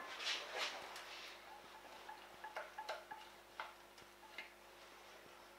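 Faint, scattered light clinks and taps of a saucepan against a stainless-steel mixing bowl as thick crème pâtissière is tipped out of it, a few of the clinks ringing briefly.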